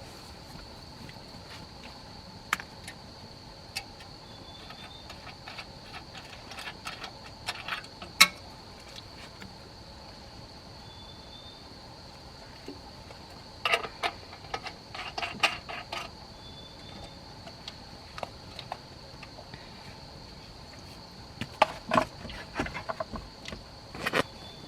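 Woodland ambience with a steady high-pitched insect drone and a short chirp every six seconds or so, broken three times by clusters of sharp clicks and light knocks.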